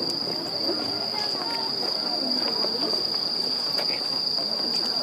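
A steady, unbroken high-pitched drone of insects chirring, with the low murmur of a crowd chatting beneath it.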